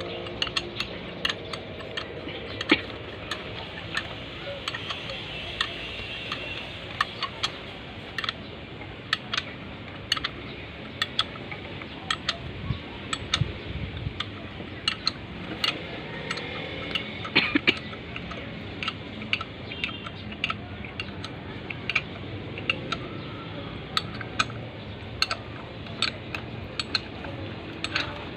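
Irregular metallic clinks and taps of hand tools and steel engine parts being handled and fitted, over a steady low background hum.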